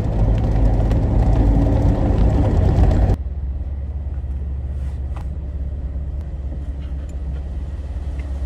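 A Jeep driving with its top off: road rumble and wind noise, changing abruptly about three seconds in to a quieter, steady low engine drone.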